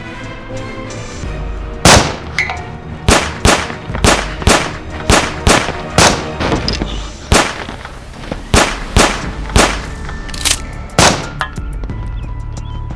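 A string of about fifteen sharp gunshot-like shots, irregularly spaced, starting about two seconds in and ending near the end, over background music.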